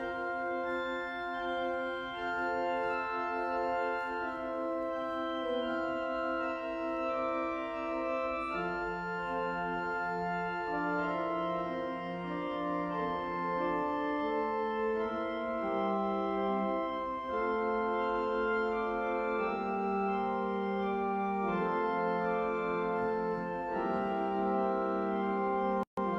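Organ playing slow music in long, held chords that change every second or two, with a momentary break in the sound near the end.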